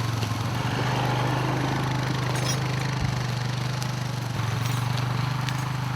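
ATV engine running steadily, with an even pulse and no change in pitch.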